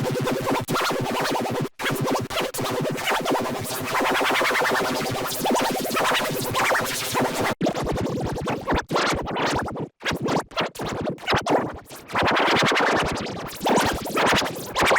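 Heavily processed, electronically distorted audio: rapid stuttering and chopping like record scratching over music, with sudden brief dropouts.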